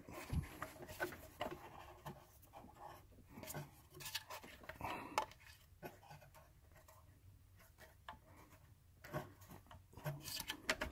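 Faint, scattered clicks and rubs of a small metal bolt being handled and started by hand into its hole while fitting a secondary air pump.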